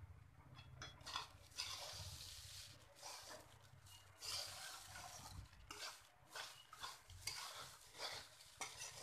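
Metal spatula stirring and tossing poha (flattened rice) in a steel kadhai, in irregular scraping strokes against the pan.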